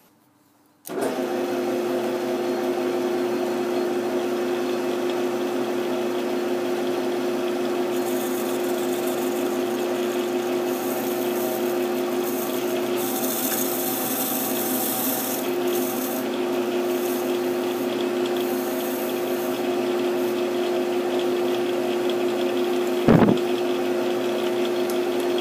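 Metal lathe running as a radius form tool takes a light finishing cut on a turning metal hub under a coolant mist spray: a steady machine hum with one clear pitch, with a hiss that swells in the middle. It starts suddenly about a second in, and a single sharp knock comes near the end.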